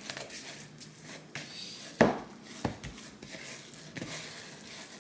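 Gloved hands kneading ground turkey with breadcrumbs in a plastic mixing bowl: soft squishing and scattered light clicks, with one sharp knock about two seconds in.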